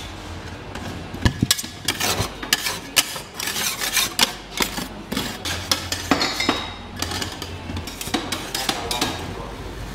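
Two metal spatulas scraping, spreading and chopping rolled-ice-cream mixture on the frozen steel plate of an ice cream roll pan: irregular sharp clacks mixed with rasping scrapes.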